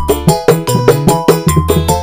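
Koplo dangdut music: a kendang hand drum played in quick, regular strokes, about five a second, with deep bass tones, over a keyboard backing.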